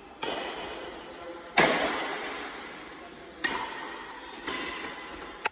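Badminton rackets striking a shuttlecock during a rally: five sharp hits a second or two apart, each ringing on in a reverberant metal-walled hall. The second hit, about one and a half seconds in, is the loudest.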